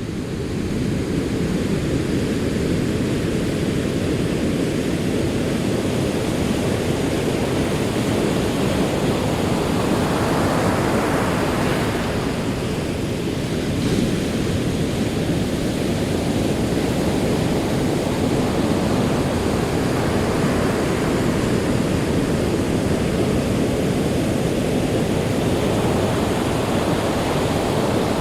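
Ocean waves breaking on a shore, a continuous surf wash that swells and eases slowly, with a deep rumble under it. The sound fades in over the first second.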